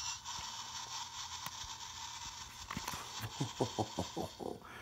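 Millennium Falcon toy quadcopter drone starting up from its remote: a faint steady electronic hum, then, about three seconds in, a quick run of short clicking pulses, about seven a second, lasting a little over a second.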